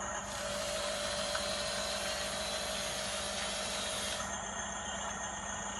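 Small electric motor and gears of a radio-controlled toy vehicle whirring steadily. A brighter, higher whine joins in shortly after the start and stops about four seconds in.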